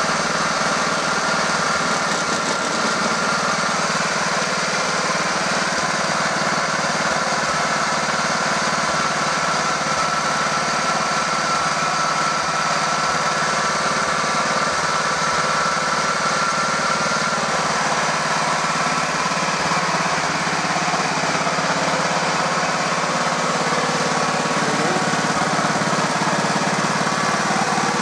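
Engine of a 1968 Stothert and Pitt W28 Mk 1 vibrating roller running steadily, with a steady high whine over the engine note.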